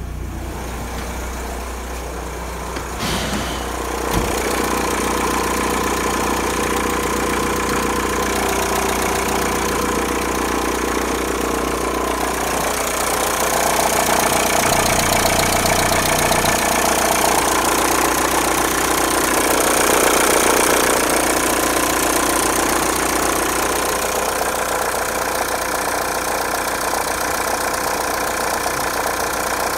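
VW Golf 3 1.9 TDI (1Z) four-cylinder turbodiesel idling steadily with a knocking diesel clatter. A few sharp clicks sound about three to four seconds in.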